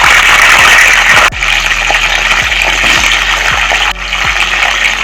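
Cut hog plum (amra) pieces sizzling loudly in hot mustard oil in a kadai, a dense hiss from the fruit just dropped into the oil, easing slightly twice.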